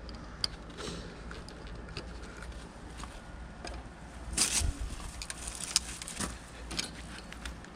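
Scattered small clicks and taps of hands working on wiring and parts, with a brief louder rustle or scrape about four and a half seconds in, over a steady low hum.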